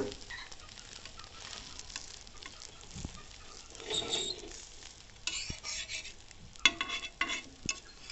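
Bread omelette sizzling in a flat iron pan (tawa), with a metal spatula scraping and clicking against the pan now and then, more often in the second half.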